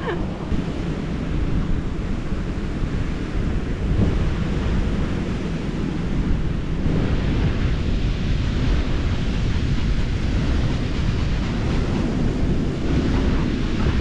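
Wind buffeting the microphone over a steady rush of sea surf.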